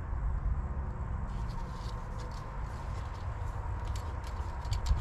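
Light scratchy clicks and scrapes of a tractor's engine-oil dipstick being handled and slid in its tube during an oil-level check, starting about a second in, over a steady low rumble.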